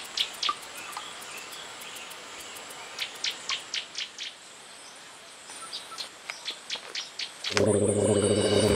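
Outdoor ambience in dense vegetation with runs of short high chirps, several a second, coming in three bursts over a faint steady hiss. About seven and a half seconds in, a loud low buzzing sound with a steady pitch cuts in and lasts over a second.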